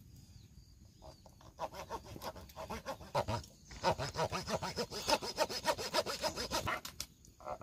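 Quick, rhythmic rasping strokes of a tool working wood, several a second, growing louder about four seconds in.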